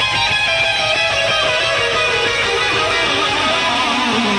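Live rock music: an electric guitar playing a moving lead line over the band, settling onto a held low note near the end.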